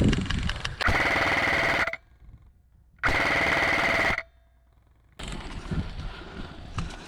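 Airsoft electric gun firing two full-auto bursts of about a second each, a rapid mechanical rattle with the gearbox whine running through it, with a short pause between them.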